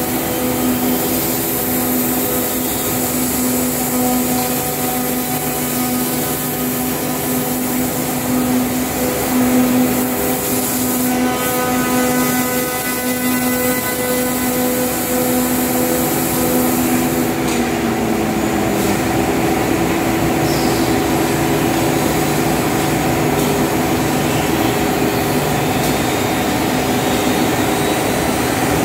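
Heian SR-331P CNC router's spindles cutting solid-wood stool-seat blanks: a steady machine whine over a loud hiss of cutting and dust extraction. About two-thirds of the way through, the whine slides down in pitch and settles lower.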